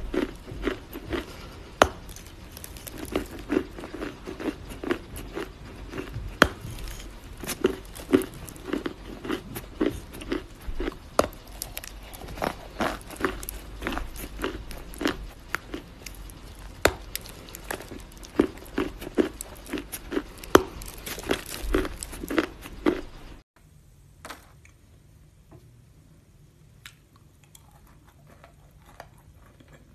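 Crunching and chewing of a chunk of chalk, with sharp crisp crunches coming several times a second. About 23 seconds in the sound drops away to a much quieter stretch with only occasional faint crunches.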